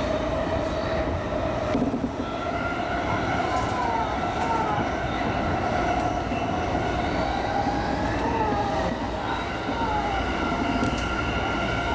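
Electric commuter train running on the line, heard from inside the front car: a steady rumble of wheels on rail with a whine from the traction motors that shifts a little in pitch.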